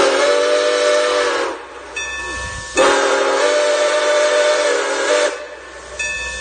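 Milwaukee Road 261's steam whistle sounding two long blasts, each a chord of several notes. The first lasts about a second and a half; the second starts a little more than a second later and runs about two and a half seconds. The locomotive's bell rings underneath, with clear strikes between the blasts and after them.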